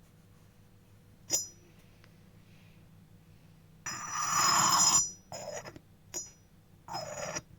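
Yixing clay teapot ringing under clinks and scrapes of clay on clay. A sharp ringing clink comes about a second in, then a louder scrape lasting about a second, followed by shorter scrapes and another clink near the end.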